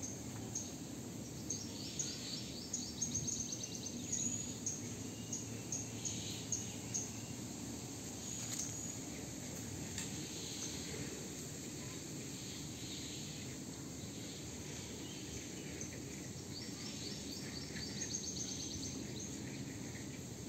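Outdoor ambience: a steady low background hiss with rapid, high-pitched chirping trills, one run over the first several seconds and another near the end.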